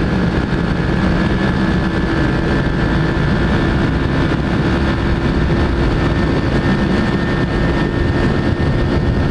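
Motorcycle engine running at a steady cruising speed with an unchanging pitch, under heavy wind rush on the microphone.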